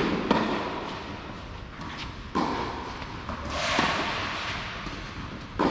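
Tennis rally on a clay court: sharp racket-on-ball hits at the start, about two and a half seconds in and near the end, each echoing under the covered court's roof. Between them, a scrape of shoes sliding on the clay as a player lunges for a wide ball.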